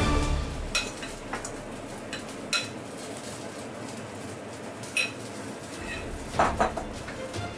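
Metal spoon clinking against a glass bowl while scooping out spinach filling: a handful of separate clinks, with two close together near the end.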